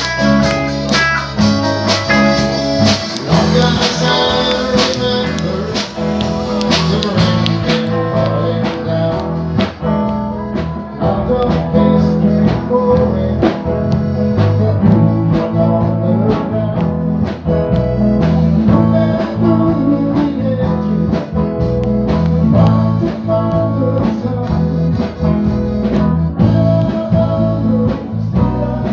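Live band playing a song on accordion, electric guitars and drum kit, with a man singing at times.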